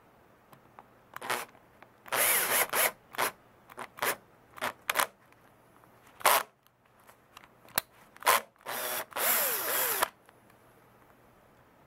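Makita DF330DWX 10.8 V cordless driver drill driving a 16 mm wood screw into a softwood board. The motor runs in a series of short trigger bursts, with two longer runs of under a second each, one about two seconds in and one near the end.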